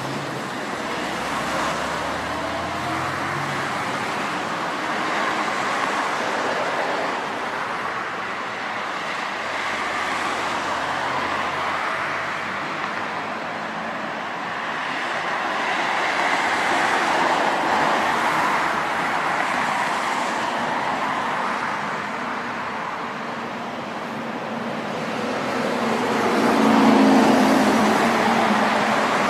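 Traffic noise: a steady rolling rush that swells and fades, with a low hum coming in near the end.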